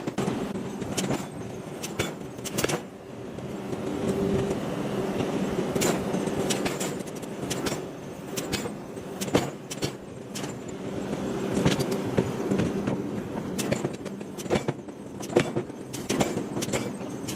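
Metal-drilling machine running with a steady hum, broken by frequent irregular sharp metal clanks and knocks as hot iron blocks are worked.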